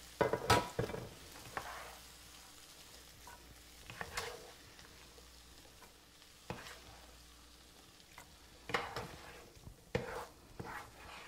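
A metal serving spoon scraping and knocking in an electric skillet as a thick ground beef and bean mixture is scooped out and dropped into a baking dish. The scrapes come in irregular strokes, a second or more apart.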